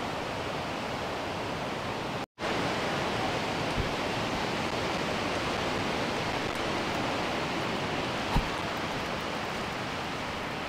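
Steady outdoor rushing noise like flowing water, cut off by a brief gap of silence about two seconds in, with a soft low thump about eight seconds in.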